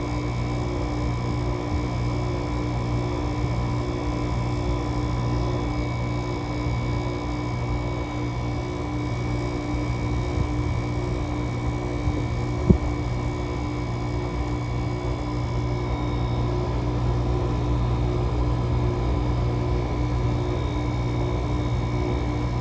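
GE 5050 BTU window air conditioner running steadily, its Samsung rotary compressor and fan making a constant hum with a few steady tones, while it is still building head pressure after a cold start in freezing weather. A single sharp click about halfway through.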